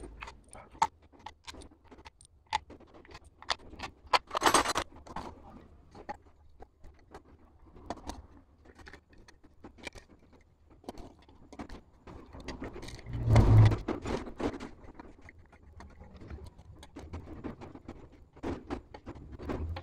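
Steel bolts clinking in a hand and being screwed into a Honda CG125's aluminium clutch cover with a T-handle wrench: scattered small metal clicks and clinks, with a louder clatter about four and a half seconds in and again around thirteen seconds.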